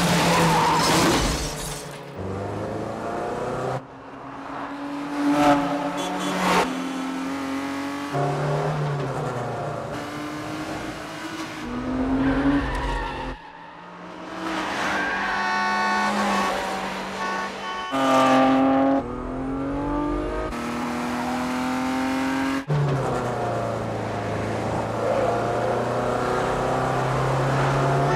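Film car-chase sound: several car engines revving hard, rising and falling in pitch through gear changes, with tyres squealing. The engine sound changes abruptly every few seconds.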